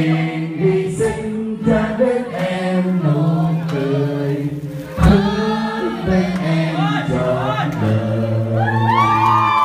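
A group of people singing together, with a man singing into a microphone; one sharp knock about halfway through.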